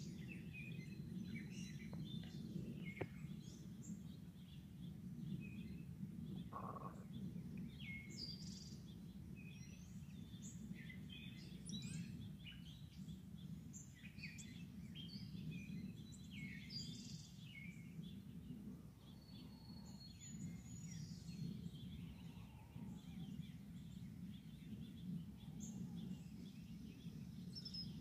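Small songbirds chirping and calling, many short high notes scattered throughout, over a steady low background rumble.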